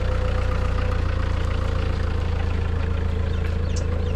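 An engine idling steadily, a low even drone with no change in speed.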